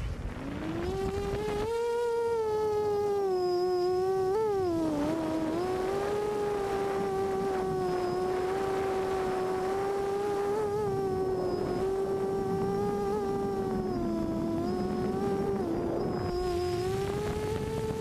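Quadcopter's four Cobra 2213 2000kv brushless motors spinning 6-inch propellers, a steady high whine in flight. The pitch climbs over the first two seconds, dips and wobbles sharply about four to five seconds in, then drifts gently up and down with throttle.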